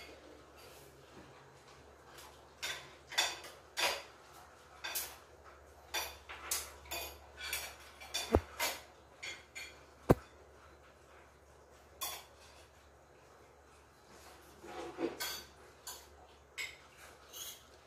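Spoons and forks clinking and scraping on ceramic plates as several people eat, in scattered short clicks, with two sharper clicks about 8 and 10 seconds in.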